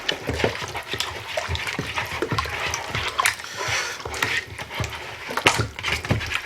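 Plastic zip-top bag crinkling and wet marinade squishing as chicken drumsticks are kneaded inside it by hand: a dense run of irregular crackles.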